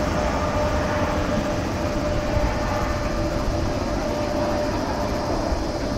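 Jet engines of a Boeing 777-300 heard from the ground as the airliner climbs away after takeoff: a steady rumble with a thin, constant whine above it.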